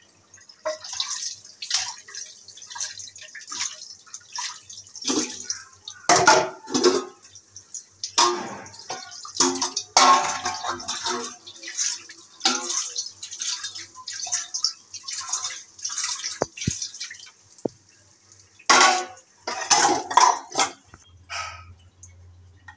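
Tap water running onto plates and stainless-steel bowls as they are rinsed by hand, with repeated clinks and knocks of the dishes being handled. Near the end the water stops and the louder clatter of dishes being stacked follows.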